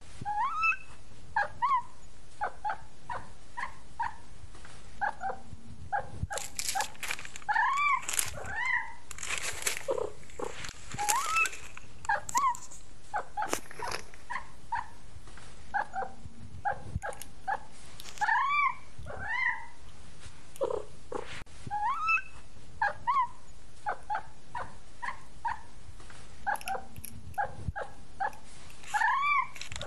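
Kitten mewing over and over in short, high calls, each rising and falling in pitch, sometimes two or three in quick succession. A few bursts of rustling noise come in between, mostly in the first half.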